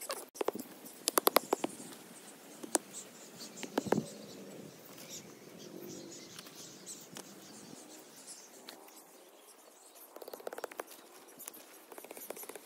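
Sharp clicks and taps of bamboo sticks and a knife being handled and knocked together, coming in quick runs, the loudest about a second in and another run near the end.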